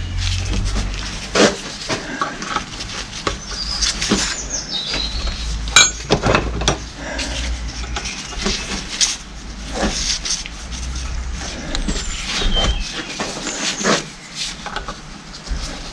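Irregular clicks, knocks and clinks of hand tools working on a hydraulic pump's metal parts held in a vise, with a few short high squeaks.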